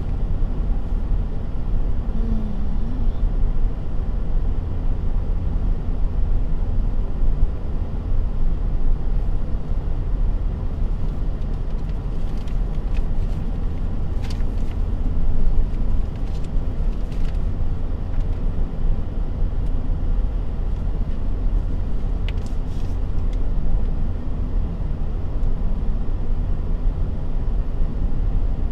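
Steady low rumble of a car driving on a paved highway, engine and tyre noise heard from inside the car.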